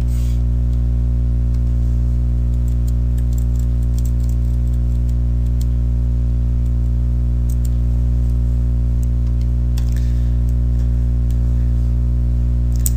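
Steady electrical mains hum, a stack of even low tones, from the recording setup, with a few faint clicks of a computer mouse in the second half.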